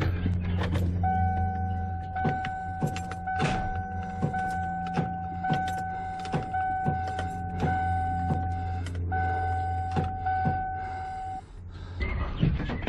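Ford F-150's electronic warning chime sounding a steady repeating tone, pulsing about once a second, with frequent sharp clicks and knocks over a low steady hum; it stops about a second before the end.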